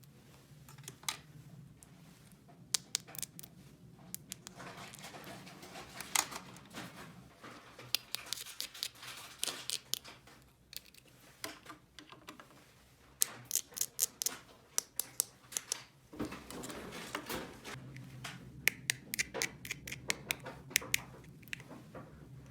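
Small plastic toy pieces being handled and set down: irregular clicks and taps in quick clusters, with soft scraping and rustling between them.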